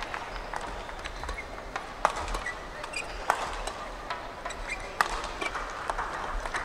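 Indoor sports hall background noise with scattered sharp clicks, a few louder ones about two, three and five seconds in, and some brief high squeaks.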